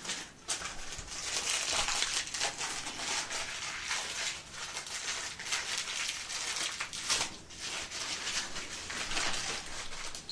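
Continuous rustling and crinkling with many small clicks and knocks, as wooden dowels and flat-pack parts are handled.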